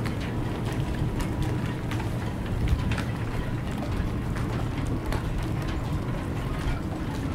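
Wind and small waves slapping against the hulls of moored sailboats, a steady low rushing, with scattered small clicks and knocks from rigging and fittings.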